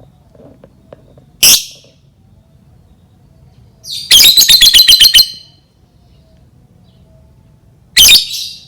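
Lovebird calling: a sharp, shrill chirp about a second and a half in, a rapid rattling trill of about ten notes in the middle, and another sharp chirp near the end.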